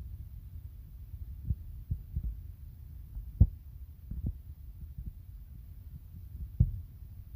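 Steady low rumble with irregular dull thumps, about half a dozen, the loudest about a third of the way in and again near the end.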